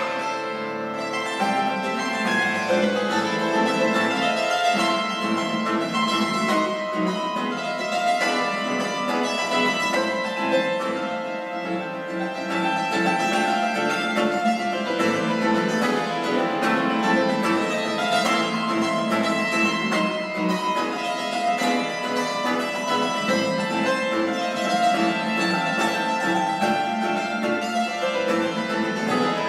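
Tenor hammered dulcimer (Hackbrett) and classical guitar playing a traditional Venezuelan valse together: struck dulcimer notes over plucked guitar accompaniment, without a break.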